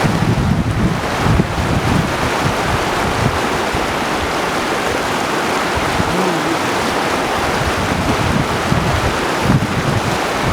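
Mountain river rushing in a steady, loud roar, with wind buffeting the microphone in uneven low gusts.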